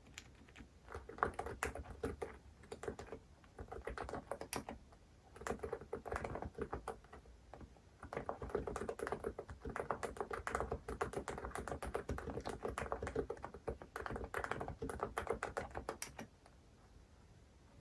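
Fully lubed Hansung GK868B TICO capacitive keyboard being typed on in quick runs, with brief pauses between bursts. The typing stops about a second and a half before the end.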